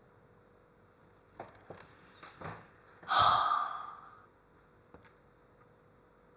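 A person breathing close to the microphone: a few short breaths, then one louder exhale about three seconds in that fades over about a second.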